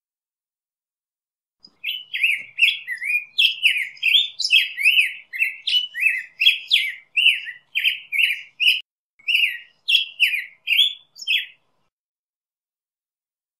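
Black-headed grosbeak singing: a long, unbroken run of short whistled phrases, each sliding up or down in pitch. It starts about two seconds in and stops about two seconds before the end.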